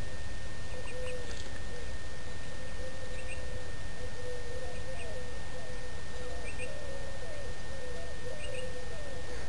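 A dove cooing in a long, wavering run of low notes, with small birds giving brief double chirps every second or two, over a steady low rumble.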